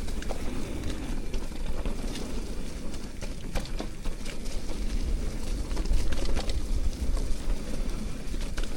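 Mountain bike riding over a damp, slippery dirt trail: a steady low rumble of wind and ground on the bike-mounted microphone, with frequent short clicks and rattles from the bike over rough ground.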